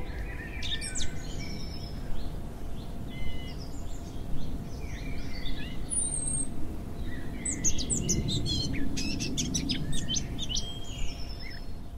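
Small birds chirping and twittering, many short chirps and a few whistled notes, busiest in the second half, over a steady low background rumble.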